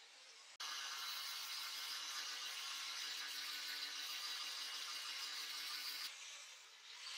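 Angle grinder grinding a steel hammer head clamped in a vise: a steady grinding whine that cuts in suddenly about half a second in and dips briefly near the end.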